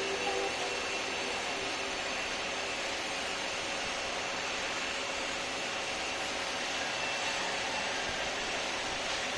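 Steady rushing machine or air noise with a thin high whine held through it.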